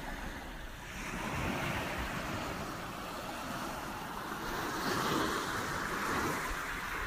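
Surf washing on the shore, a steady hiss that swells about a second in and again around five seconds, with wind buffeting the microphone.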